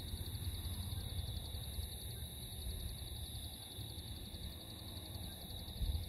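Steady dusk insect chorus: a rapid, high pulsing trill with an even higher constant drone above it. A low rumble of wind on the microphone runs underneath and swells near the end.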